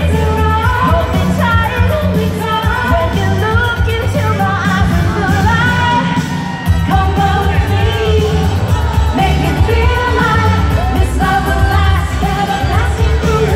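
Live freestyle dance-pop song with female vocals over an amplified band with heavy bass, played through a concert sound system.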